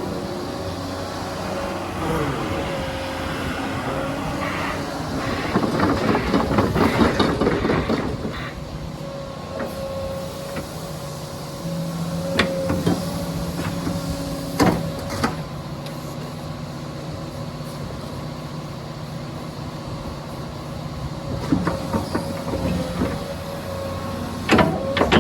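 Komatsu PC210 crawler excavator's diesel engine running steadily, louder for a few seconds about a quarter of the way in, with a few sharp metallic knocks from the machine.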